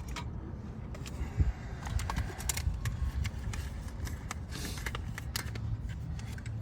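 Small plastic car-door parts, a power window switch assembly among them, handled by hand: scattered light clicks and rattles, with a brief rustle a little before five seconds in, over a steady low hum.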